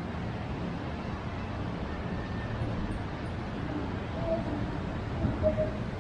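Ocean surf washing on the beach: a steady, low wash of noise with a few brief louder moments near the end.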